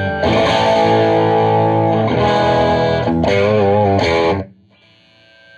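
Distorted electric guitar, a Gibson Les Paul R8, played loud through a Marshall 2203 amp head: several sustained chords, one shaken with vibrato, then muted about four and a half seconds in, leaving a faint amp hum.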